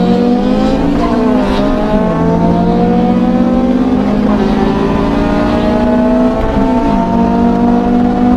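Honda four-cylinder engine accelerating hard at full throttle, its pitch climbing steadily through each gear and dropping sharply on an upshift about two seconds in and again near the end.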